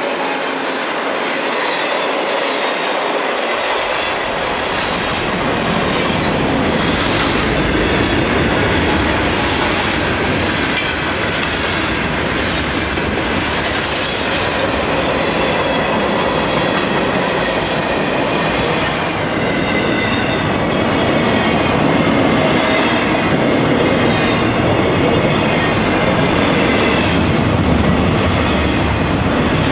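Florida East Coast Railway freight train rolling past, its wheels clattering over the rail joints with some wheel squeal. A deeper rumble joins a few seconds in, and the noise then holds steady.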